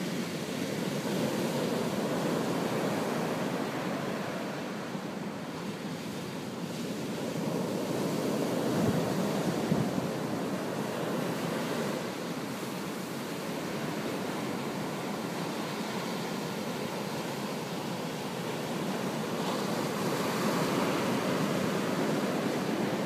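Ocean surf breaking just offshore and washing up the sand in a continuous rush that swells and eases as each set of waves comes in.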